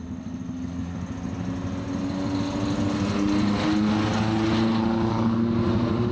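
A motor vehicle's engine running as it approaches, growing louder over the first few seconds and then holding steady, with a hum whose pitch wavers slightly.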